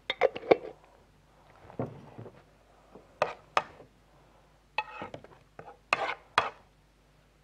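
A metal spoon clinking and scraping against a frying pan as onion and garlic are stirred into a little oil, in a series of sharp knocks at irregular intervals.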